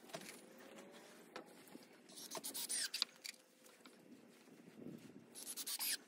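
Faint scraping and rustling as a screw is fitted to a cordless drill and lumber boards are handled, with two louder rough scrapes, one about two to three seconds in and one just before the end.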